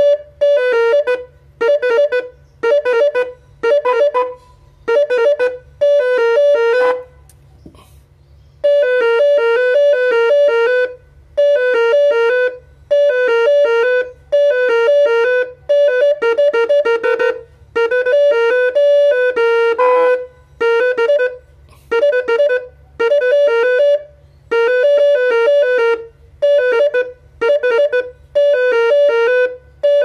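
Three-snail electric telolet horn set, its 400, 500 and 600 Hz snail horns driven by a melody module, tooting the telolet tune loudly in short bursts of alternating notes about once a second, with a brief break about a quarter of the way in and some longer runs later.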